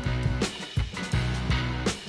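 Background rock music with drums, bass and guitar and a steady beat.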